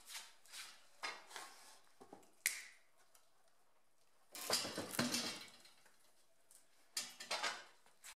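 Scrapes, shuffles and light metallic clinks as a heavily loaded hand pallet jack is walked over a door threshold on steel-plate ramps and wooden blocking. There are several short scrapes at first, a sharp click about two and a half seconds in, and longer bursts of scraping around the middle and near the end.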